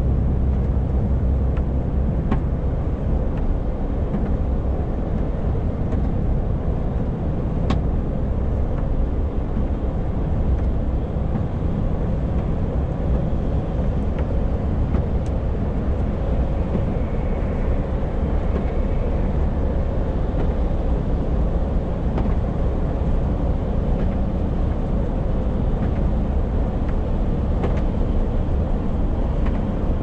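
Steady engine and road drone of a lorry heard from inside its cab while driving along, with a few faint clicks.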